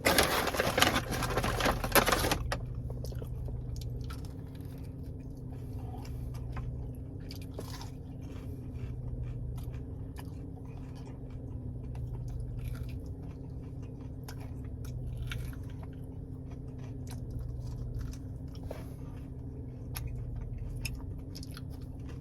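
Chewing and biting into fried breaded mozzarella cheese bites, with scattered small crunches of the crispy breading. A loud, noisy burst fills the first two seconds, and a steady low hum runs underneath.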